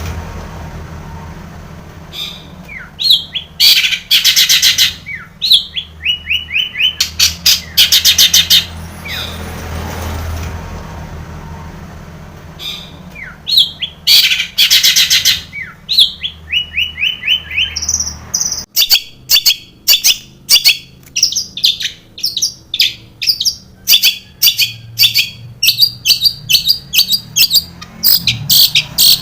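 Long-tailed shrike (cendet) singing a loud, varied song full of mimicked calls: phrases of rapid repeated notes and harsh chatter with short pauses, turning about two-thirds in to a fast, unbroken run of sharp notes.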